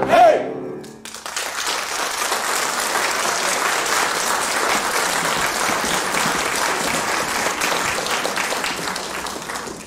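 A final sung note cuts off in the first half-second, then a theatre audience applauds steadily for about eight seconds, the clapping dying away near the end.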